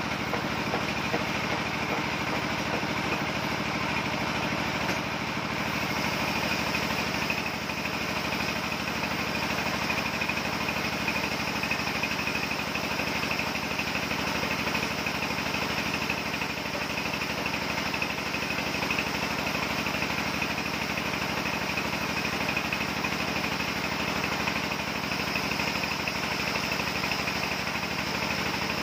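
Sawmill machinery running steadily, an even engine-like hum that neither rises nor falls.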